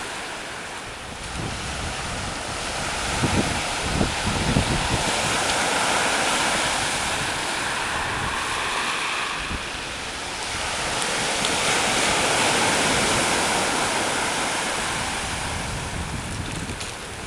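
Sea waves breaking and washing ashore in rising and falling swells, with wind buffeting the microphone in gusts a few seconds in.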